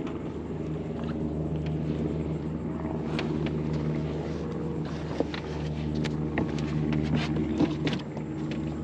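Boat's outboard motor running steadily, a low even drone, with scattered light clicks and knocks over it.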